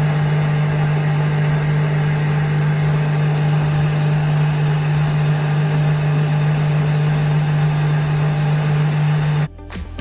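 A motor running at one steady pitch, a strong low hum with a hiss over it, cutting off suddenly near the end.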